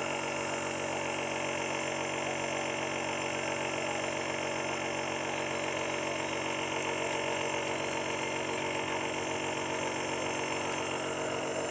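Compressor nebulizer running: a steady, unchanging mechanical hum made of many fixed tones as it turns liquid medicine into a mist for a coughing baby to breathe.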